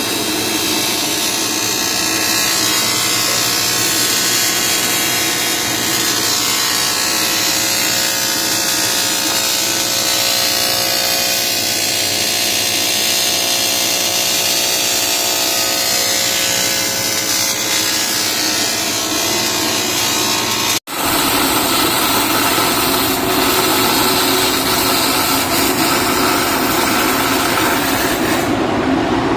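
Welding arc on aluminium from a Miller XMT welder: a steady noisy buzz with several held tones, broken by a sudden cut about 21 seconds in to another stretch of the same kind of sound.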